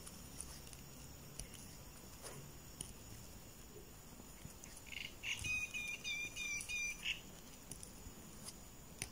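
Faint, scattered clicks of a crochet hook and yarn being worked stitch by stitch, with a short run of high, repeated chirps from about five to seven seconds in.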